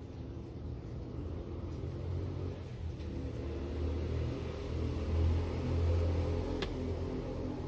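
A low engine rumble that grows louder through the middle and then eases off, with one short click about two-thirds of the way through.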